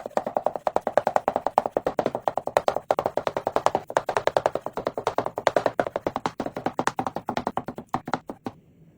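Rapid, even tapping, about eight to ten taps a second, stopping shortly before the end.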